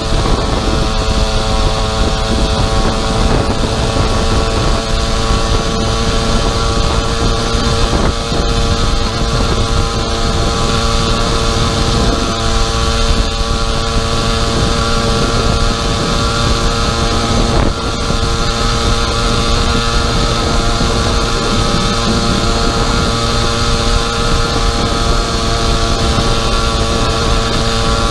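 Small 50cc two-stroke pocket-bike engine on a motorized bicycle running under way, holding a steady, unchanging pitch at cruising speed.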